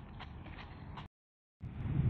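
A few footsteps on a gravel path over a steady background hiss, cutting off abruptly about a second in. After a short silence, wind buffeting the microphone starts near the end.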